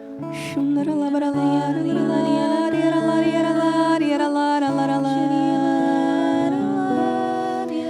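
Slow, quiet worship music in which a voice sings or hums long, held notes, changing pitch every second or so.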